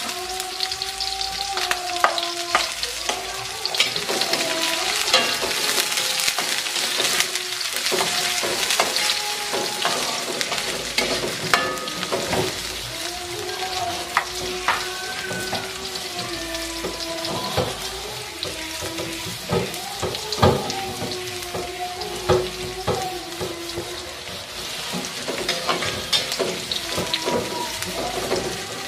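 Sliced shallots and garlic sizzling in hot oil in a metal wok, with a spatula clicking and scraping against the pan as they are stirred, over a faint steady hum. The shallots are being sautéed until wilted.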